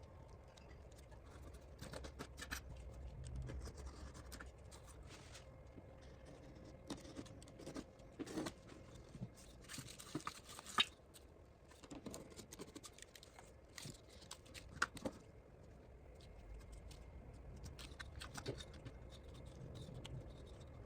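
Quiet handwork on paper birch bark being made into veneer: scattered light scratching, rustling and clicking, with one sharper click a little past the halfway mark, over a low steady hum.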